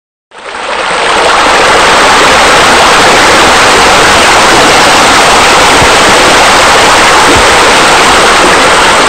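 Steady, loud rushing of falling and splashing water, like a pool waterfall and bubbler jets, fading in during the first second.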